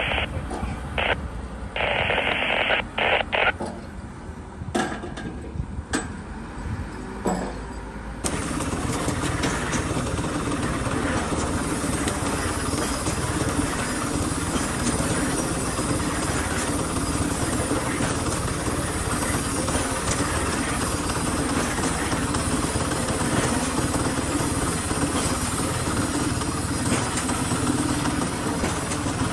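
A small engine-driven concrete mixer running steadily, starting abruptly about eight seconds in; before it, short irregular sounds.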